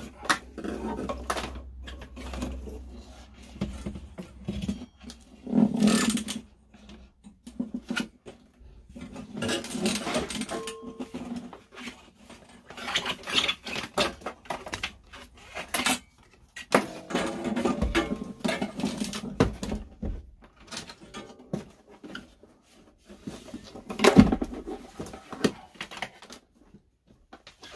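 Handling noises from a diesel heater being test-fitted: its flexible metal exhaust and intake pipes scrape and rattle as they are fed down a hole in the floor, and the heater's casing knocks and slides as it is set in place, with a sharp knock near the end.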